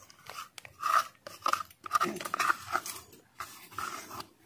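Raw chicken being mixed by hand with curd and ginger-garlic paste for a marinade: a run of irregular squishing strokes, about three or four a second.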